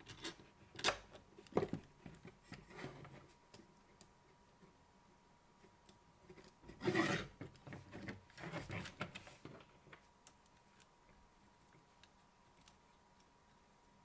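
PLA 3D-printed plastic scissor-mechanism arms being handled and folded together: plastic parts clacking and rubbing against each other in a scattering of short clicks and rubs, the loudest about seven seconds in.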